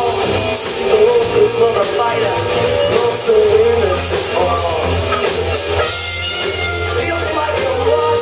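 Live rock band playing loudly: a male voice singing over electric guitars, a bass line and a drum kit with cymbals kept in a steady beat.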